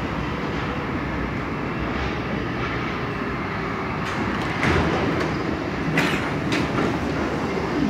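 Munich U-Bahn train running into the underground station and coming to a stop, a steady low rumble. In the second half a few sharp clunks and hisses come as it stops and its doors open.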